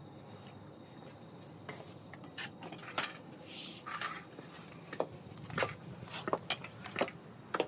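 Footsteps in very high platform heels on a hard floor: uneven sharp clicks and knocks, with a couple of brief scrapes, starting about two seconds in and coming faster toward the end.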